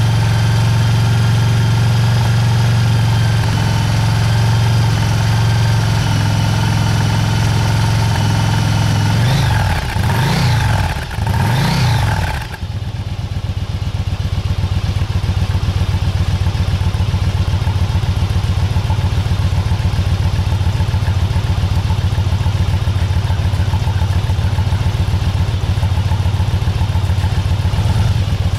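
The air-cooled V-twin of a 2008 Yamaha V-Star 1100 Classic idles steadily. About ten seconds in its throttle is blipped twice, in two quick revs that rise and fall. It then settles back to a lumpy, pulsing idle.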